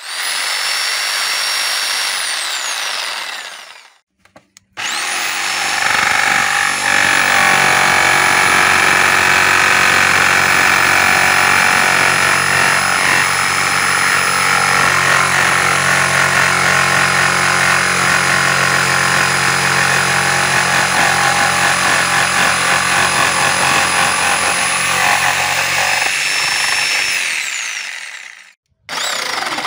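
CAT DX57 electric jigsaw running with a steady high motor whine. It runs briefly with the blade in the air, winds down about 3 seconds in, then starts again and saws through a wooden board for over 20 seconds, the blade chattering through the wood. Near the end it winds down once more and starts up again.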